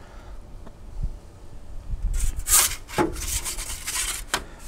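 Metal pizza peel scraping across the stone floor of a pizza oven, several rasping scrapes from about two seconds in as it slides under the pizza to lift it out.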